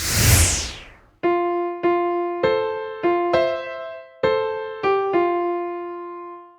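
A whoosh falling in pitch, then a short electric-piano jingle of about eight struck notes, the last one held and fading out near the end.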